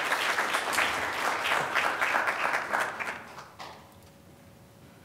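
Audience applauding a speaker's introduction, many hands clapping together, then dying away about three and a half seconds in.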